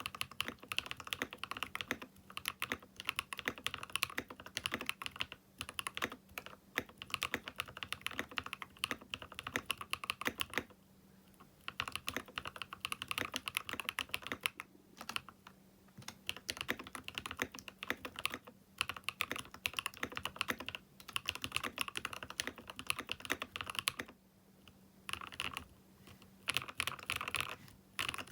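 Continuous typing on a Keychron K6 Pro mechanical keyboard fitted with Owlab London Fog switches: a dense run of keystroke clacks that breaks off briefly a few times.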